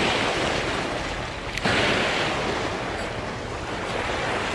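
Sea waves surging and washing over shoreline rocks, with one sharp click about one and a half seconds in, followed by a louder surge. The angler takes the swell for the wake of a ferry that probably passed a little earlier.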